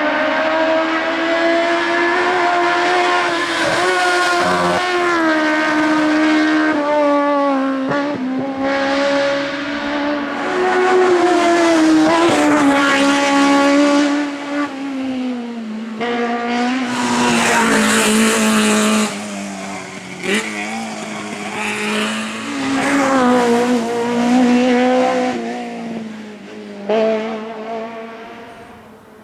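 Race car engine revving hard and changing gear, its pitch climbing and dropping again and again, with tyre squeal. The sound fades toward the end.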